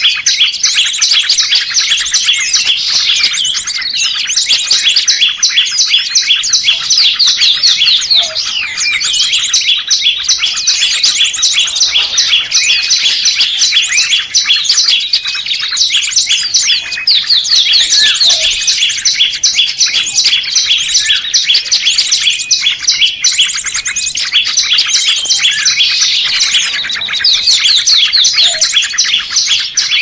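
Dense, rapid high-pitched chirping and twittering of small songbirds, many notes a second layered over one another without a break. It is a trapping lure track (masteran) of small songbirds such as prinias, sunbirds and bulbuls.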